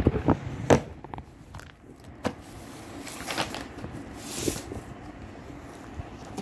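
A few sharp knocks and bumps as a phone is handled and set down on a table, then two short rustles of paper as a textbook is opened and its pages turned.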